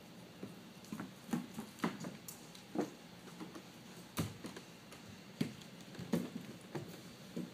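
Irregular footsteps and bumps of children moving across a stage floor: a string of soft knocks and thuds, about one or two a second.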